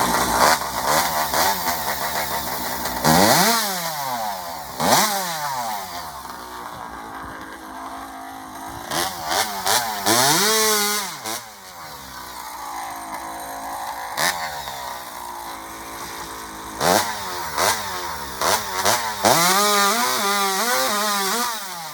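Two-stroke chainsaw running hard at high revs, its pitch dropping and climbing back again and again as the revs fall and rise.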